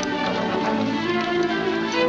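Orchestral film score with bowed strings, playing held notes at a steady level.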